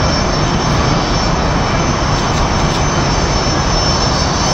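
Blue Angels F/A-18 Hornet's jet engines running as it taxis: loud, steady jet noise with a thin high whine over it.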